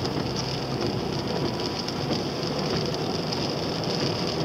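Steady road and engine noise inside the cabin of a car driving on a rain-wet road, a continuous rushing sound with faint ticks.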